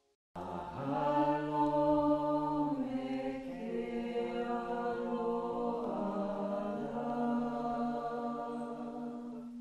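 A single low man's voice chanting in long, held notes. It starts abruptly just after the start and steps to a new pitch about three seconds and again about six seconds in.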